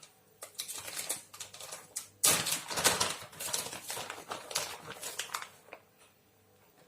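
Shredded mozzarella being sprinkled by hand over cabbage in an oven dish: a quick run of soft rustles and light patters, loudest about two seconds in, dying away near the end.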